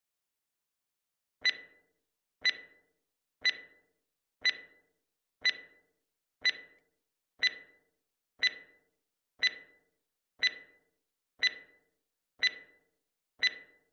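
Countdown timer sound effect: short ticks, one a second, in otherwise dead silence.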